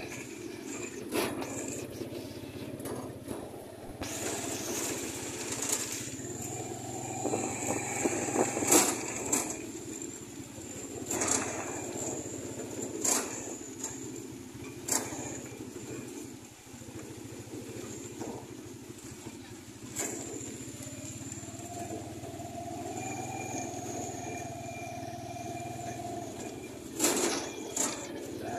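Engine of a Mitsubishi L300 van running as the van creeps slowly along a lane, with sharp knocks coming every few seconds.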